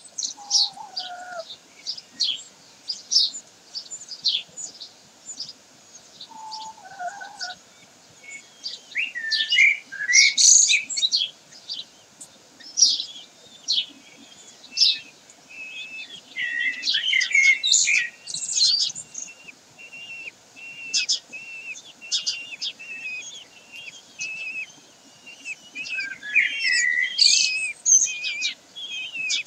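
Birds chirping: many short, high, squeaky notes in quick succession, with several louder, busier bursts and a few gliding calls among them.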